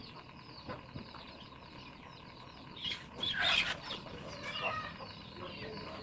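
Birds chirping in the background, repeated short falling chirps, with a louder burst of sound lasting about a second, about three seconds in.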